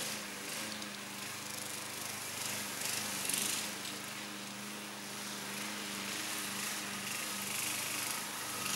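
Alpina BL 510 walk-behind lawn mower engine running steadily under load as it cuts tall, dry grass, with an even engine hum and a hiss of grass and blade noise above it.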